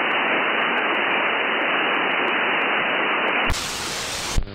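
Radio static hiss from an SDR receiver tuned to an empty CB channel, heard through its narrow lower-sideband filter. About three and a half seconds in, the hiss turns brighter and wider as the receiver is switched to AM, and it ends with a click.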